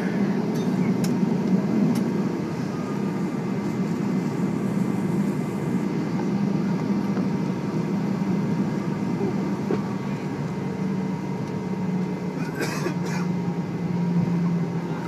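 Airbus A320 cabin noise with the engines at low power after landing: a steady hum with a constant low drone and a faint higher tone. A short clatter of clicks comes about thirteen seconds in.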